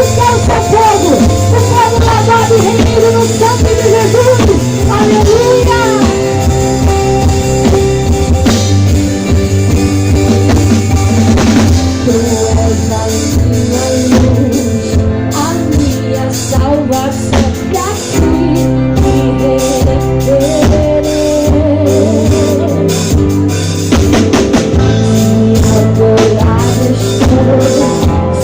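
Live gospel worship band playing through a PA: a singing voice over drum kit, guitar and bass.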